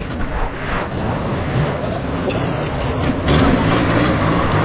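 Cars driving past at low speed: engines running and tyres on the road. About three seconds in, an engine grows louder as a car comes close.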